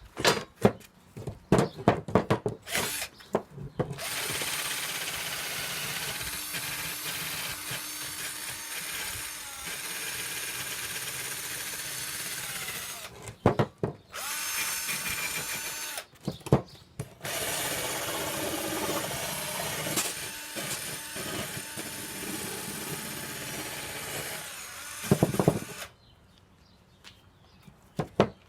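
Electric drill running in three long stretches with stops and clattering knocks between them, likely driving a wire brush to scrub loose paint and rust scale off de-rusted steel parts.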